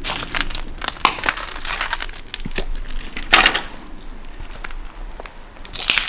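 Footsteps crunching and crackling over debris strewn on the floor, an irregular run of crunches with one louder crunch about three and a half seconds in.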